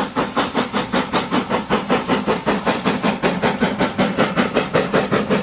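Steam locomotive dressed as Thomas the Tank Engine chuffing steadily as it runs along the track, a rapid, even beat of exhaust puffs with a hiss.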